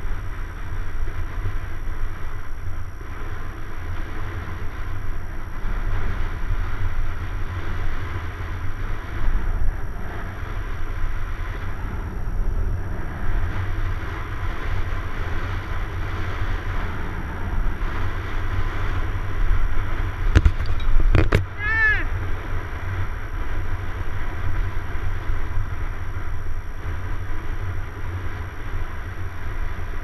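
Wind rumbling over a bike-mounted action camera's microphone, with tyre noise on tarmac as a mountain bike rolls along a paved road. About two-thirds of the way in come a few sharp clicks and a brief high squeak.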